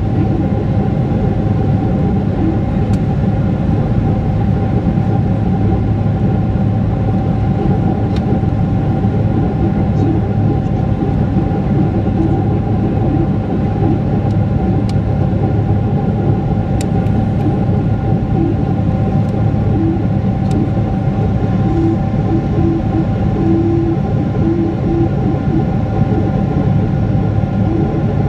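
Steady engine and airflow noise inside the cabin of a Boeing 777-300ER climbing after takeoff, heard at a window seat beside the wing: the GE90-115B turbofans running at climb power, a deep rush with a few steady tones on top.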